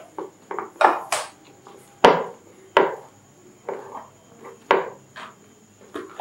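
A flat scraper spreading and smoothing whipped cream frosting on top of a cake: a run of short smearing strokes, one or two a second, several starting with a sharp click.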